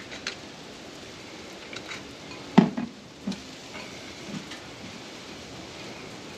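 Hands tossing cabbage slaw in a glass bowl, with a few light clicks and one sharp knock about two and a half seconds in, the glass avocado-oil bottle set down on the table, over a steady hiss.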